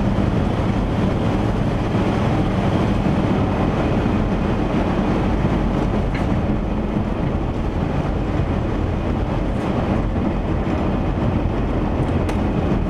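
Camper van under way: steady engine and road noise with a low hum. There is no exhaust-leak sound, as the leak has been repaired.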